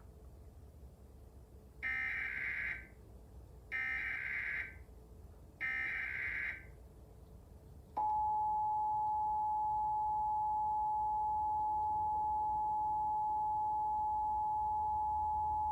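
Emergency Alert System test on TV: three bursts of SAME header data, each about a second long and a couple of seconds apart, with a buzzing, warbling screech. About eight seconds in, the steady two-tone EAS attention signal (853 and 960 Hz together) begins and holds at a constant pitch.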